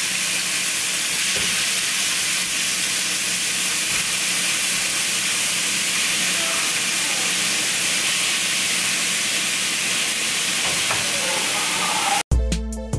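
Pieces of raw chicken frying in hot oil in a skillet: a steady sizzle. Just before the end it cuts off suddenly and music with a heavy beat starts.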